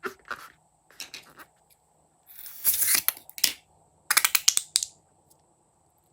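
Crisp, sticky crackling and snipping from slime and balloons being worked by hand, in four short bursts. The loudest bursts come about two and a half to three and a half seconds in and again just after four seconds.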